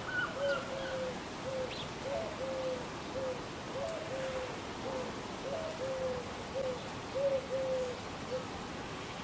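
Background music: a slow run of short, low pitched notes, about two a second, each dropping slightly in pitch, over a steady hiss.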